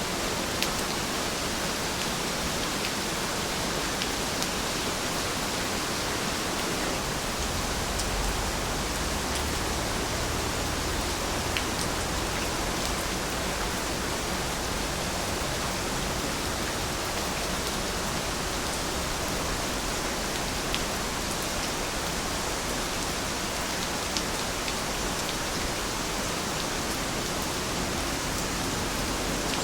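Steady rain falling, an even hiss with scattered individual drops ticking on a surface. A low rumble swells in the background from about eight seconds in and fades by about sixteen seconds.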